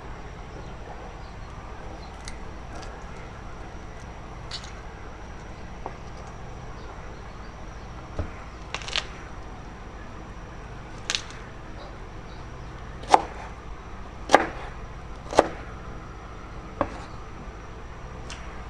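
Knife chopping on a wooden cutting board: several sharp, separate chops spaced a second or more apart, all in the second half, the three loudest coming about a second apart. A steady low hum runs underneath.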